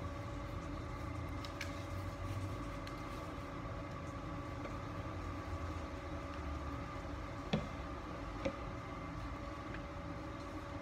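A steady mechanical hum with a low rumble beneath it, and two faint clicks from hands handling paper and glue sticks about two-thirds of the way through.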